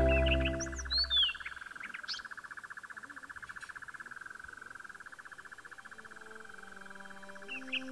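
Background music fades out over the first second or so, leaving bird chirps and a steady, fast, pulsing trill. Soft low music notes come back near the end.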